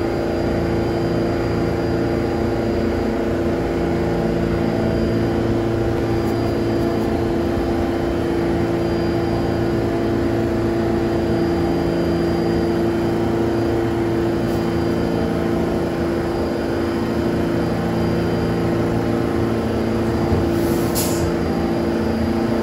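An R46 subway train standing in the station with its doors open, giving off a steady electrical hum of several held tones over a ventilation-like rush. A short, sharp high sound cuts in near the end.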